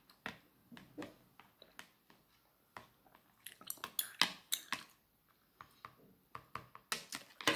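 A table knife and then metal chopsticks clicking, tapping and scraping against a plastic plate as rice cakes are cut and picked up. The sharp, irregular clicks are busiest around four seconds in and again near the end.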